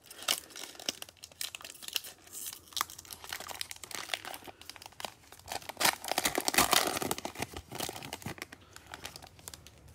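Foil Panini Prizm trading card pack crinkling and tearing as it is ripped open by hand, in a run of irregular crackles, loudest about six to seven seconds in.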